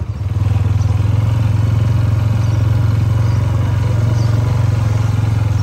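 Motorcycle engine running as the bike is ridden, a loud, steady low drone that swells just after the start.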